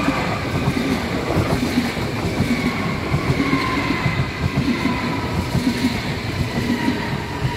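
Munich S-Bahn electric train passing at close range: a steady rumble with a fast clatter of wheels on the rails, and a faint whine that slowly falls in pitch.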